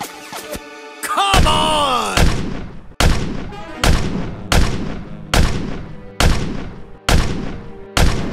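Cartoon battle sound effects: a rattle of quick shots, then a falling whistle ending in a boom about two seconds in. After that comes a run of heavy explosion booms, evenly spaced a little under a second apart.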